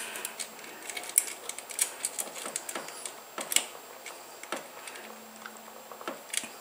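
Scattered small clicks and taps of metal parts being handled as a new throttle cable is fed through the throttle linkage bracket on a scooter carburetor.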